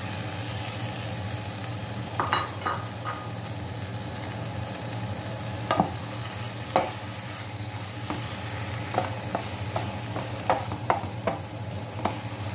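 Paneer cubes in onion-tomato masala sizzling in a non-stick frying pan while they are stirred, with a spatula scraping and clicking against the pan now and then, more often in the second half.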